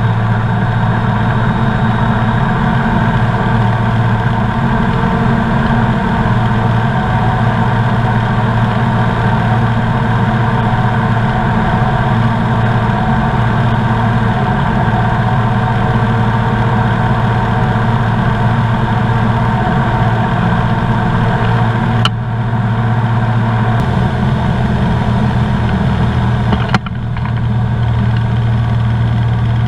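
Comco Ikarus C42B ultralight's engine and propeller running steadily in the climb after takeoff, heard from inside the cockpit as a continuous drone. There are two brief dips in level near the end.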